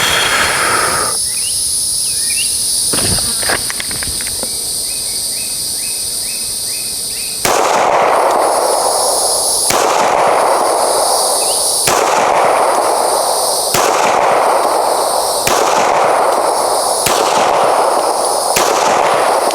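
Seven gunshots fired at a slow, even pace about two seconds apart, starting about seven seconds in, each followed by a short ringing echo. A steady high insect buzz runs underneath.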